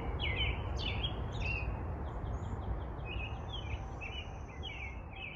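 Several garden songbirds chirping and singing in an overlapping chorus, with a quick run of short repeated notes about three seconds in, over a low steady rumble.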